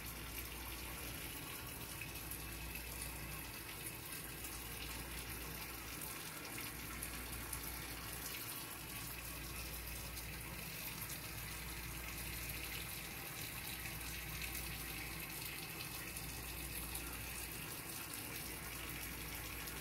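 Steady, even hiss with a low hum beneath it, unchanging throughout and with no distinct knocks or clicks.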